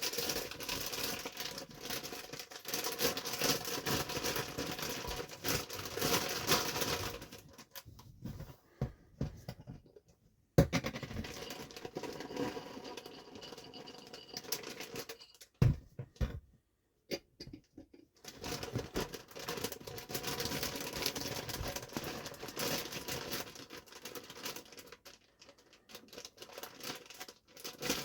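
Plastic mushroom grow bags crinkling and rustling as they are handled and inoculated with grain spawn. The handling pauses twice for a second or two, and there are two sharp knocks about ten and sixteen seconds in.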